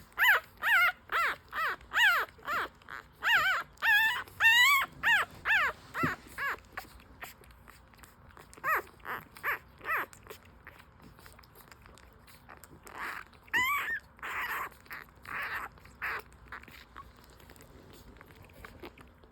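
Newborn French Bulldog puppies crying in short, high-pitched squeals that bend up and down, about two a second, in three bursts. These are the hungry cries of puppies a few days old jostling to nurse.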